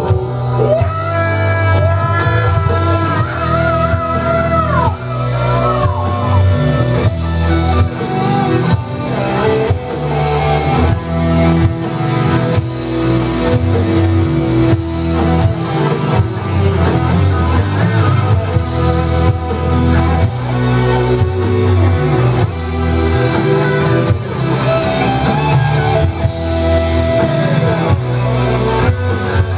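Loud heavy metal song with electric guitar and full band. A singer holds long notes with vibrato in the first several seconds and again near the end, with a mostly instrumental stretch in between.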